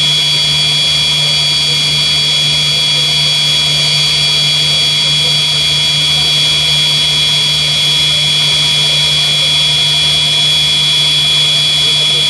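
Yak-42 jet airliner's three D-36 turbofans running at takeoff power, heard from the cabin over the wing: a steady high turbine whistle over a low hum and rushing noise as the aircraft accelerates and lifts off.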